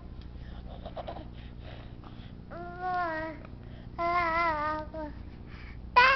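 Baby babbling in long, wavering sing-song vowels with a TV remote in his mouth: two drawn-out stretches in the second half, and another starting at the very end.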